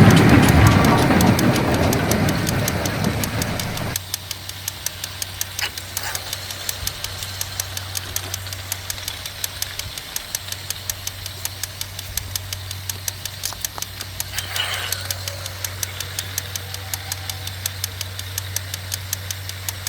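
Small DC motor of a homemade can-built toy train running: a steady hum with regular clicking at about three clicks a second. The first four seconds are louder and rougher.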